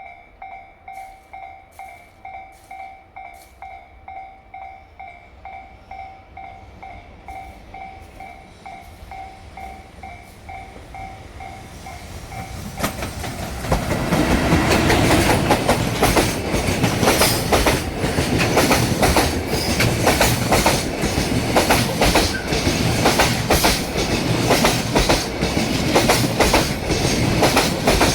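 Level-crossing bell dinging steadily, about twice a second. About 13 seconds in, a JR Freight EF210 electric locomotive hauling a train of Koki container wagons arrives, and loud clattering of the wheels over the rail joints takes over, a dense run of sharp knocks over a rumble.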